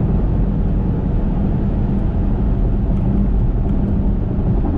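Steady low rumble of a car cruising at highway speed, heard from inside the cabin: tyre and engine noise with a constant hum.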